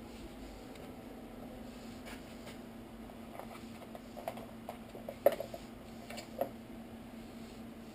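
A few light clicks and clinks of hand tools being picked out of a socket tray on a workbench, the sharpest about five seconds in, over a steady low hum.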